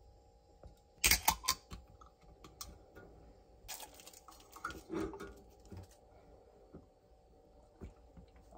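Two short spells of clicking and rustling, the first about a second in and a longer one from about four seconds in, with a few single ticks, over a faint steady hum.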